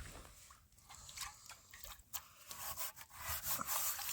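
Faint scraping and rubbing, with a few light clicks or taps spread through.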